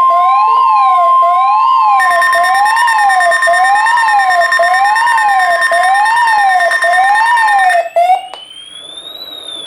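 Weather radio alarms sounding together: the steady 1050 Hz warning alert tone under a siren-like warble that sweeps up and down about once a second, with a second, higher steady tone joining about two seconds in. The alarms cut off about eight seconds in, and a single tone rises and then slowly falls.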